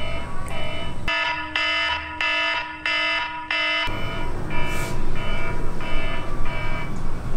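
Evenly repeating electronic beeps, about two a second, each a pitched tone. They sound cleaner and louder for a few seconds in the middle.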